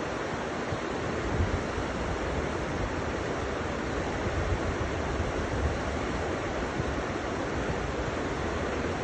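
River water flowing and rushing steadily, a continuous even rush with occasional low rumbles.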